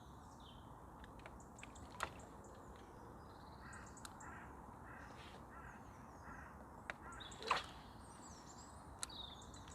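Quiet waterside ambience with faint bird calls: a run of about six short, evenly spaced calls midway through and a few higher chirps. Several light clicks and one short, louder knock about three quarters of the way in.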